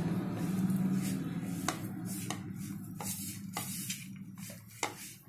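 Fingers rubbing and mixing crumbly roasted gram-flour masala, moistened with a sprinkle of water, against a non-stick pan: a soft scraping rustle with scattered light ticks over a low steady hum. It grows quieter towards the end.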